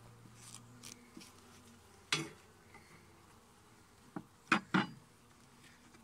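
Honeybees buzzing over an open hive, with about four sharp clicks and knocks, one about two seconds in and a loud cluster near the end, as wooden frames stuck together with propolis are worked loose.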